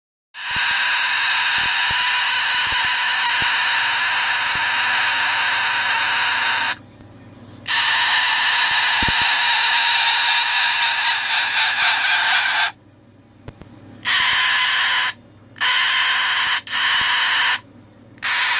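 Cockatoo screaming: two long harsh screams of several seconds each, then a run of shorter screams about a second apiece. It is the grumpy screaming of a tired bird at bedtime.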